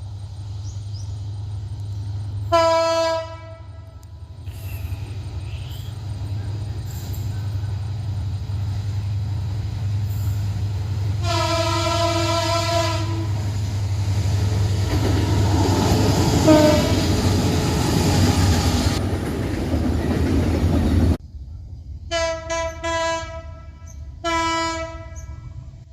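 Train horn sounding over the steady low rumble of a train: a short blast, then a longer blast of about two seconds, then rising noise as the train passes close. After an abrupt cut, a quick series of short toots and one more short blast.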